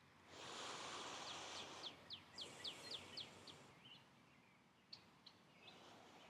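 A bird singing faintly: a run of about eight quick down-slurred high notes, roughly three a second, followed by a few scattered chirps, over a soft hiss in the first half.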